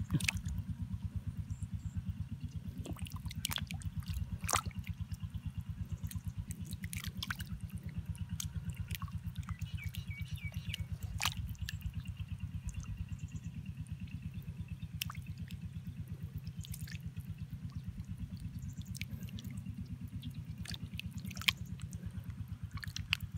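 A bare hand squelching and groping through soft wet mud and muddy water, feeling for fish, with scattered small wet clicks and drips. A steady low rhythmic throb runs underneath and is the loudest thing throughout.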